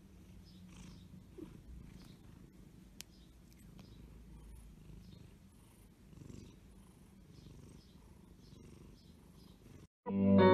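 Turkish Angora cat purring softly and steadily. Acoustic guitar music comes in loudly at the very end.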